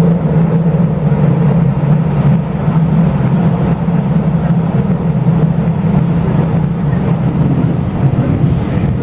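Taiwan Railway regional express train running, heard from inside the carriage: a loud, steady rumble with a low hum and no breaks.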